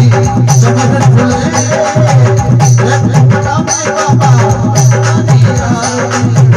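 Indian devotional folk music (a bhajan) playing as an instrumental passage, with hand drums and rattles keeping a steady beat under melody instruments.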